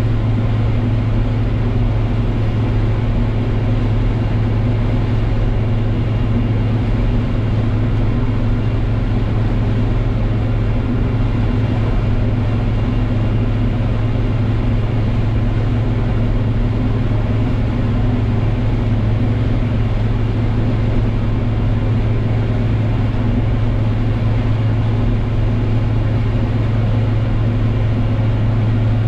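Case IH 1640 combine running steadily while harvesting soybeans: an even, loud, low hum of engine and threshing machinery, unchanging throughout.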